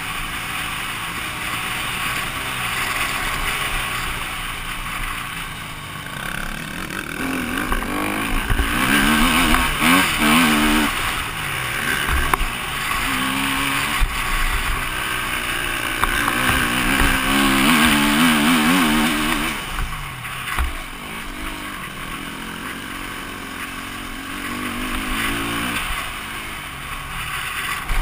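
KTM EXC-F 250 single-cylinder four-stroke dirt bike engine under way, revving up and backing off over and over as the bike accelerates and slows. It runs louder about a third of the way in and again past halfway.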